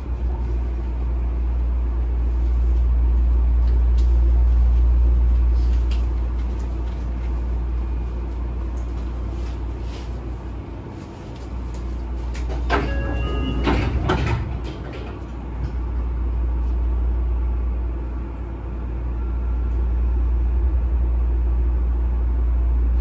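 Inside a Sotetsu 9000 series commuter train car standing at a station: a steady low hum. About 13 seconds in there is a brief clatter of knocks with a few short chiming tones, typical of sliding doors working.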